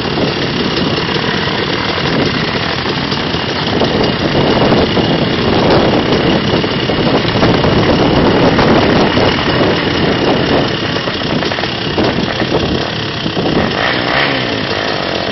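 Off-road motorcycle and quad engines running and idling, swelling for a few seconds in the middle as the quad is driven through a muddy water crossing.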